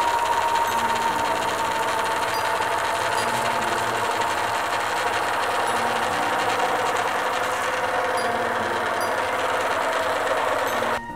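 Motor-driven cinema film-reel machinery running steadily, with a whine that slowly falls in pitch. It stops suddenly near the end.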